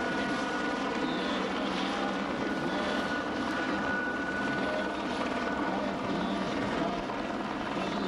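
Eurocopter AS350 Écureuil helicopter hovering low overhead: steady rotor and turbine noise with a thin, constant high whine.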